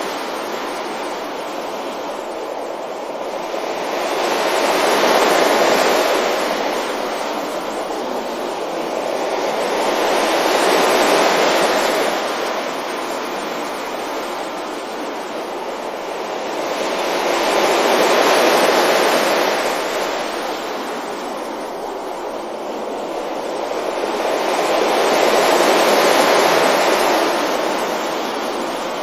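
Ocean waves breaking gently on a beach, the surf rising and falling four times, roughly every seven seconds.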